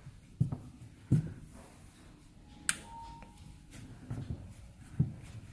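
A few soft low thumps, a sharp click about two and a half seconds in, and a brief faint beep just after it.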